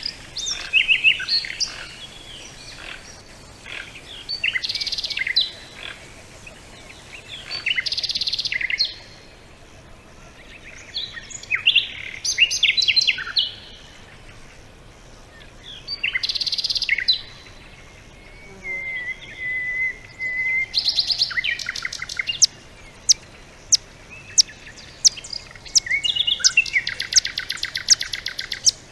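Songbirds singing in short, separate bursts of high warbling phrases. Near the middle comes one level trill, and toward the end a run of sharp repeated chips with a fast trill.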